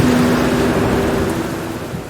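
Heavy rain hissing steadily with a low rumble of thunder underneath, the whole storm sound dying down toward the end.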